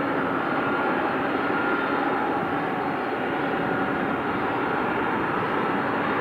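Boeing 747-400 jet engines running at idle: a steady rumble with a held high whine that does not change in pitch.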